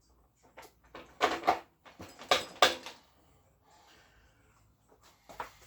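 Workshop handling noises: clunks, knocks and scrapes of motorcycle parts and tools being moved. They come in two loud clusters, about a second in and again about two and a half seconds in, with smaller clicks in between and one more knock near the end.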